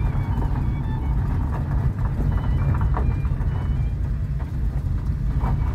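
DeSoto S-14's flathead six running as the car rolls slowly, heard from inside the cabin: a steady low rumble of engine and road noise with scattered light knocks and clicks.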